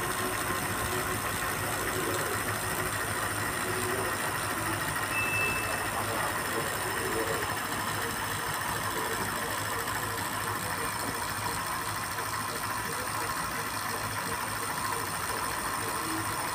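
Fujicascope 8mm film projector running: its motor, belts and pulleys whirring steadily over a constant low hum.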